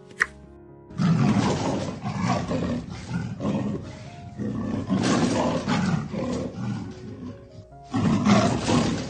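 A big cat roaring: a run of loud, rough calls starting about a second in, with one more after a short pause near the end, over background music.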